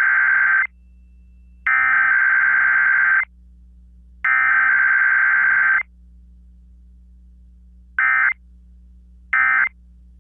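Emergency Alert System SAME digital header: three long bursts of buzzy data tones, about a second apart, the header sent three times. After a pause come two short end-of-message bursts. A faint low hum sits between the bursts.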